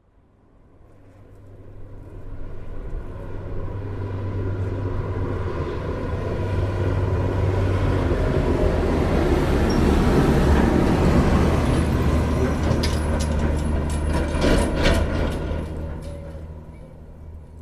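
Diesel truck engine running as the truck drives, a steady low rumble with road noise that swells to its loudest about ten seconds in and then fades away. A short run of sharp clicks and rattles comes a few seconds before it fades.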